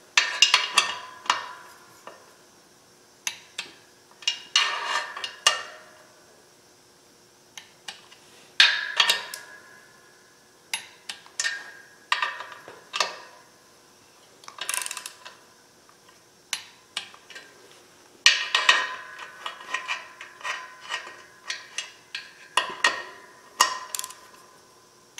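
Torque wrench ratcheting on the pressure-plate bolts of a small-block Chevy clutch as they are tightened to 20 foot-pounds: about a dozen short bursts of clicks with metal clinks, some followed by a brief metallic ring.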